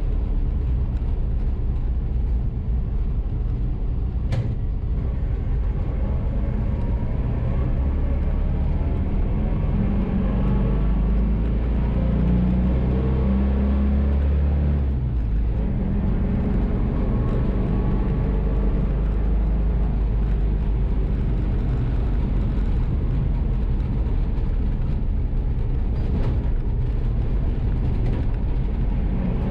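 Air-cooled flat-four engine of a 1963 Volkswagen split-window bus running as the bus is driven down the road, a steady low drone. The drone grows stronger over several seconds and drops off suddenly about halfway through, then runs on evenly.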